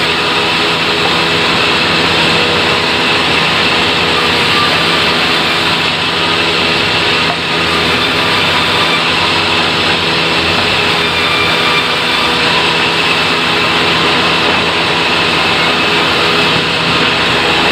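Sawmill running steadily, its engine droning under the noise of the saw cutting acacia wood.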